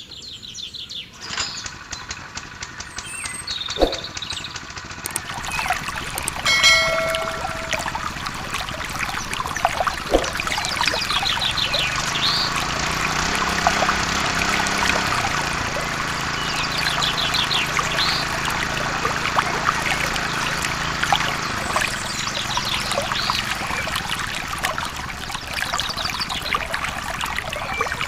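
Birds chirping and singing in repeated short trills over a steady rushing background noise.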